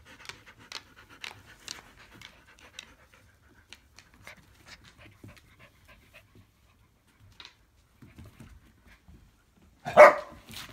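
Dogs at play: soft panting and faint scattered clicks for most of the time, then one loud, short bark about ten seconds in as the husky puppy lunges at the black Labrador.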